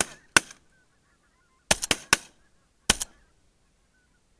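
Geese honking: short, loud calls, two near the start, then a quick run of four, then one more, with fainter honking from the flock in between.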